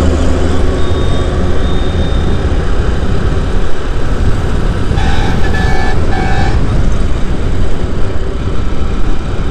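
Motorcycle riding at speed on an open road, with steady engine and wind rush. Three short horn toots come in quick succession about five seconds in.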